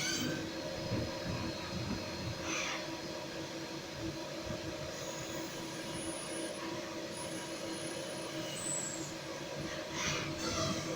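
CNC machine running in a brass-working shop: a steady mechanical hum with noisy swells about two and a half seconds in and again near the end, and a few faint high whines in between.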